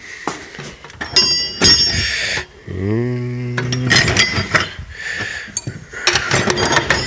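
Hand tools clinking and clattering in a steel toolbox drawer as someone sorts through punches, chisels and screwdrivers, with bright ringing clinks of metal on metal. A low, steady droning tone comes in about three seconds in and lasts about a second.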